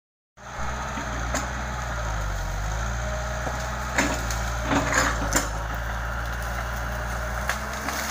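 Hitachi tracked excavator's diesel engine running steadily while its grapple works through felled trees and brush, with sharp cracks and snaps of splintering wood, a cluster of them around the middle.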